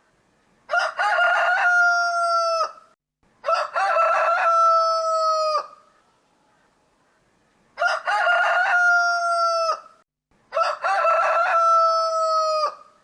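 Rooster crowing four times, in two closely spaced pairs. Each cock-a-doodle-doo lasts about two seconds and ends on a long held note that drops sharply as it finishes.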